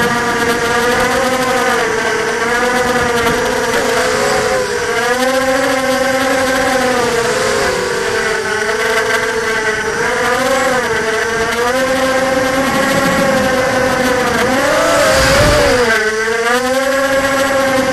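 ZMR250 racing quadcopter's four brushless motors spinning KingKong 5040 propellers on a 4S battery, heard from the camera mounted on the frame: a loud, steady whine whose pitch keeps rising and falling with the throttle as the quad races low over the grass. About fifteen seconds in there is a brief louder burst with a rumble.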